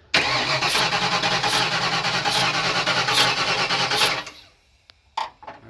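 Cold engine being cranked over on the starter for about four seconds with one spark plug out, then stopping. A burst of air gushes out through the hose from the open plug hole about every 0.8 s.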